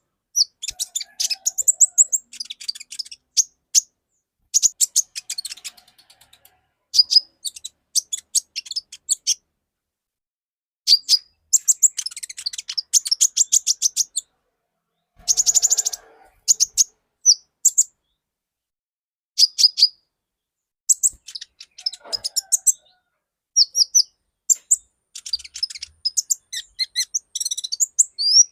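Olive-backed sunbird (konin) singing: bursts of high-pitched, rapid chirps and twittering trills, separated by short pauses.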